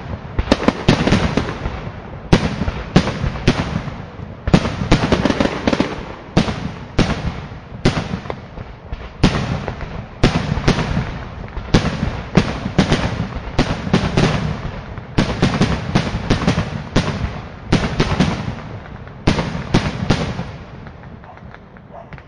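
Consumer fireworks exploding in rapid succession, sharp bangs often several a second with crackling tails, easing off near the end.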